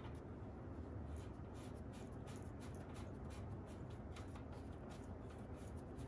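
Hand screwdriver turning a washer-head screw against the hole in a metal PC case frame: faint, irregular scratchy clicks, many per second, from about a second in, as the screw scrapes without threading in.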